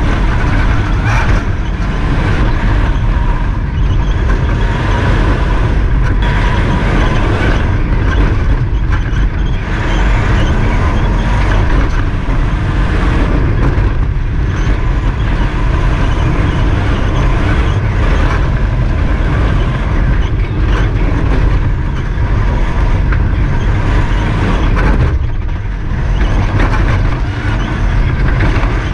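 MINI John Cooper Works Buggy rally raid car driven at speed over a rough dirt desert track, heard from inside the cockpit: loud engine and drivetrain noise mixed with gravel and road noise and scattered knocks from the bumps. There is a short lull in the engine about 25 seconds in.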